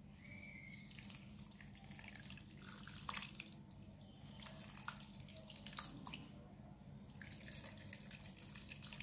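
Tamarind water trickling and dripping from a hand squeezing soaked tamarind pulp into a clay pot, faint, with scattered small drips and splashes.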